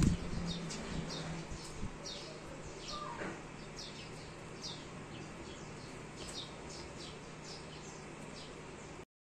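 Small birds chirping in the background: short, high, falling chirps, about two a second, over a faint steady hum. The sound cuts off suddenly near the end.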